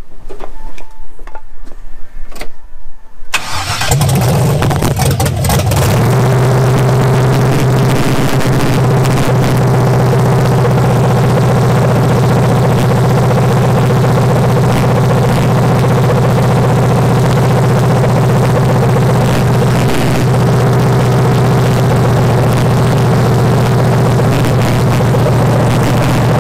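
Rebuilt 5.3 L LS V8 with a Holley 750 double-pumper carburettor starting: it catches about three seconds in, runs unevenly for a couple of seconds, then settles into a steady idle. It runs with no exhaust pipe beyond the manifolds.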